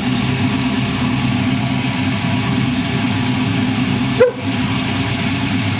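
Car engine idling steadily, with a single short dog bark about four seconds in.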